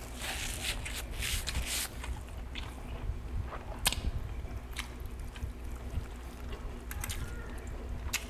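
Close-miked chewing of roast chicken, with the wet squish and crackle of a whole roast chicken being torn apart by hand. A run of crackly bursts comes in the first couple of seconds, then a few sharp clicks.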